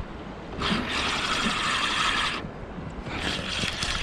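Fishing reel being cranked to wind in a hooked fish, its gears whirring in two spells of winding: one starts about half a second in, and after a short pause near the three-second mark it starts again.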